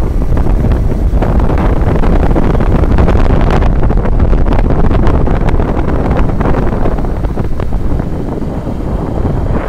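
Wind buffeting the phone's microphone: a loud, irregular rumbling hiss, easing a little near the end.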